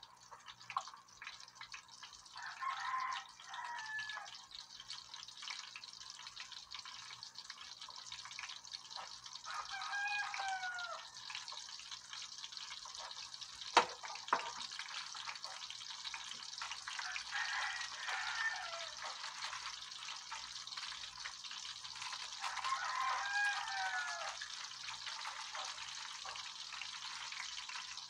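Breaded fish fillet deep-frying in a pan of hot oil: a steady crackling sizzle with many small pops. Several short pitched calls rise over it at intervals, and a single sharp knock sounds about halfway through.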